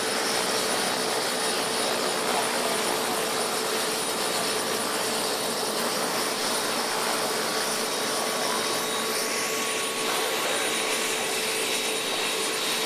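Helicopter sitting on the ground with its turbine engine running: a steady rushing noise with a constant high whine.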